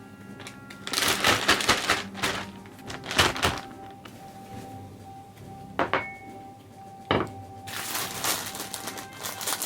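Close-up food-preparation handling: two stretches of rustling and crinkling, one about a second in and another near the end, with a few sharp knocks between them, over quiet background music.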